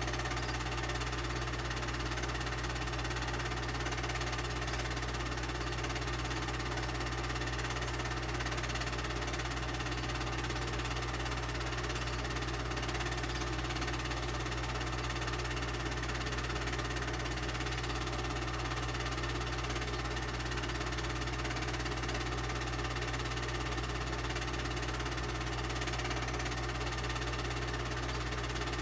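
Film projector running: a steady, unchanging mechanical whir over a low hum.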